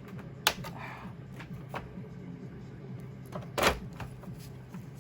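Plastic parts of an Xbox One S console clicking and knocking as a piece is pushed and worked to slot into place but won't seat properly. There are two sharp clicks, about half a second in and past the middle, with lighter clicks between them, over a low steady hum.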